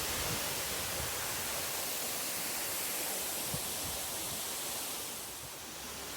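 Steady rushing of a waterfall, an even hiss that eases slightly about five seconds in.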